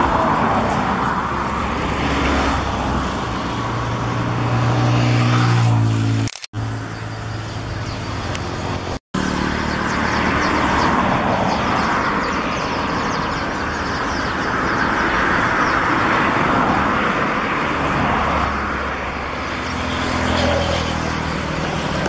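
A motor vehicle's engine running steadily under a loud rushing noise. The sound cuts out abruptly twice, about six and nine seconds in.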